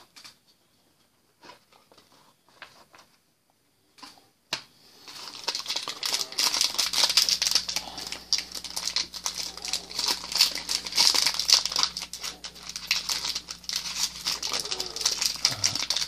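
Foil wrapper of a Panini Prizm baseball card pack crinkling and crackling as fingers twist and pull at it to tear it open; the wrapper is stubborn and hard to open. A few light clicks come first, then dense crinkling from about five seconds in.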